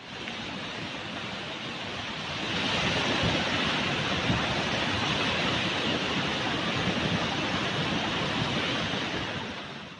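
A swollen mountain river in flood rushing past, a steady, dense rushing noise of fast water. It gets louder a couple of seconds in and eases near the end.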